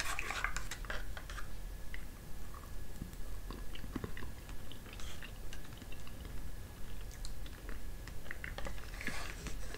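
A metal spoon scraping and clicking against the inside of a small plastic gelatin cup, with soft mouth sounds of eating spoonfuls of the gel. The sounds are faint and scattered.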